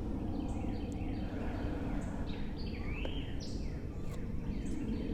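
Wild songbirds chirping and calling, many short quick notes overlapping through the whole stretch, over a steady low background rumble.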